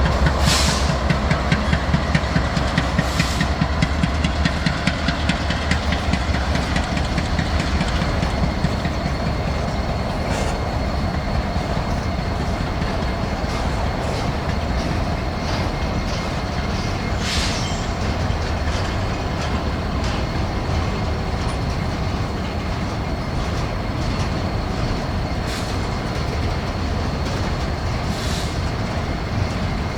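Freight train cars rolling past, a continuous rapid clatter of wheels over the rail joints with a thin steady high ring. There is a heavier low rumble in the first several seconds and a few sharp clanks along the way.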